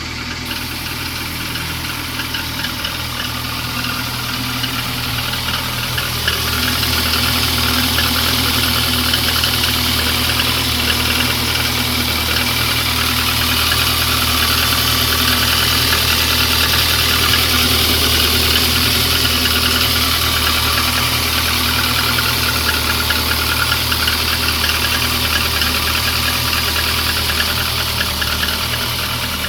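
Lada 2115 (VAZ-2115) inline-four engine idling cold, steady, with the knock it is being recorded for. The idle rises a little about six seconds in.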